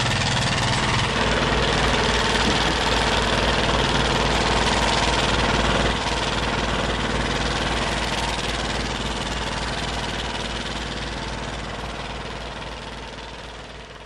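Fishing boat's engine running steadily with a low hum, fading out over the last several seconds.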